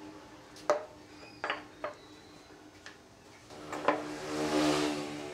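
Wooden blocks knocking against each other and the workbench as they are handled and set down: a sharp knock about a second in, two more close together around a second and a half to two seconds in, and another about four seconds in. This is followed by a brief scrape of wood sliding on wood.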